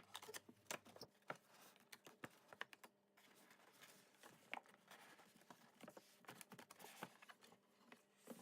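Faint, irregular clicks, taps and light scrapes of cardboard packaging being handled as a box is opened and its contents lifted out.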